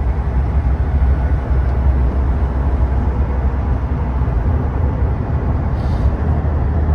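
Steady road noise inside a moving car at highway speed: a low engine and tyre rumble with an even wash of road hiss.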